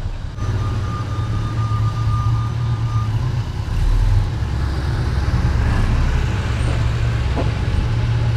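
Propane-fuelled Hyster forklift engine running steadily while carrying a machine on its forks, with a thin steady whine over it for the first few seconds.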